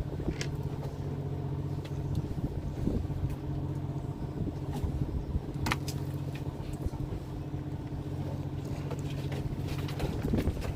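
A fishing boat's engine runs with a steady low hum. A few sharp clicks come over it, the clearest about halfway through.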